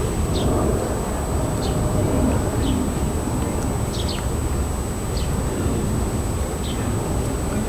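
Small birds chirping, short high chirps that sweep downward about once a second, over a steady low rumble of outdoor background noise.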